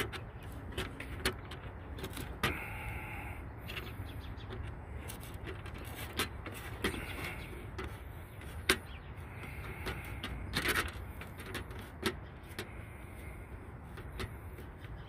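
Screwdriver turning a licence-plate screw in a plastic front plate bracket: irregular clicks and taps with a few short scraping sounds, over a steady low rumble.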